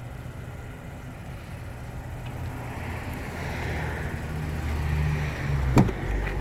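Motor vehicle noise building steadily over a low rumble and swelling to a peak about five seconds in, as of a car passing by, with one sharp click near the end.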